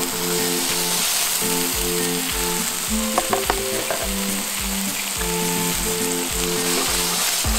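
Ground-beef burger patties sizzling steadily as they fry in oil in a nonstick frying pan. A few quick clicks come about three seconds in.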